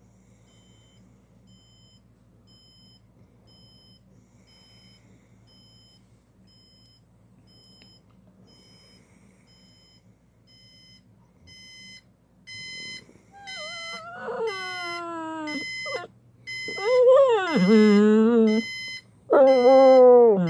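Alarm clock beeping in a steady repeating pattern, faint at first and louder from about halfway through, answered by a pit bull whining: long drawn-out whines that slide in pitch, starting a little past halfway and getting louder, his reaction to the alarm going off.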